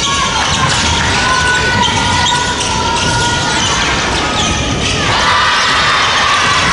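Basketball game in play on a hardwood court: the ball bouncing and players' footwork on the floor, with several steady tones held for a few seconds in the background.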